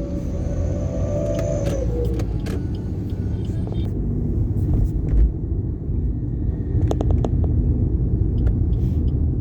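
Road vehicle driving in traffic: a steady low rumble of engine and road noise, with a tone that drops away about two seconds in, a heavy thump about five seconds in, and a few sharp clicks near seven seconds.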